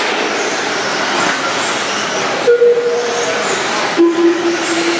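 A field of electric modified RC buggies racing on a dirt track: a dense whirr of brushless motors, gears and tyres, with high whines that rise and fall as the cars throttle. A steady humming tone comes in about halfway and a lower one near the end.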